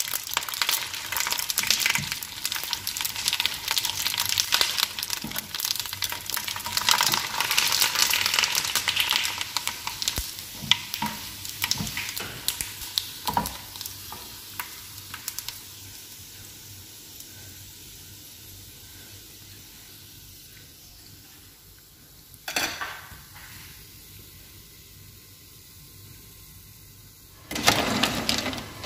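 Hot oil sizzling and crackling in a frying pan as pieces of food are fried and turned with metal tongs, with small clicks of the tongs; the sizzle dies down gradually through the second half, with one sharp knock. Near the end, a ladle clatters and stirs in a pot of broth.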